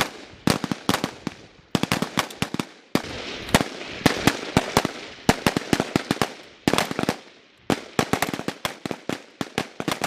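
Several 5.56 mm FAMAS assault rifles firing on a range: dozens of sharp shots in quick, irregular, overlapping volleys from multiple shooters, with short lulls between clusters.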